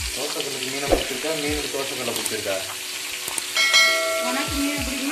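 Masala-coated fish shallow-frying in hot oil on a cast-iron dosa tawa: a steady sizzle, with knocks and scrapes as a steel utensil turns the pieces. About three and a half seconds in, a metallic clang rings out and fades.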